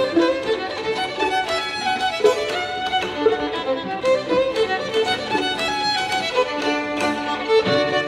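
Violin leading a melody of short, quickly changing notes over a string quartet of violins, viola and cello. Low cello notes come in strongly near the end.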